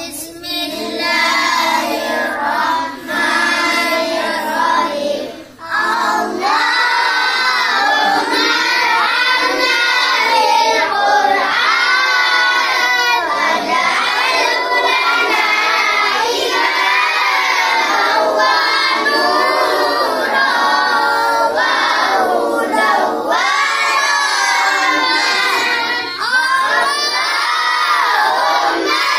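A group of children chanting loudly together in a sung recitation, many voices rising and falling in melody, with a brief break about five and a half seconds in.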